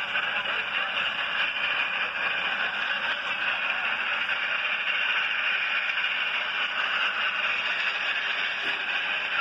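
Steady hissy noise of an old film's soundtrack playing through a laptop's small speaker, with no distinct event standing out.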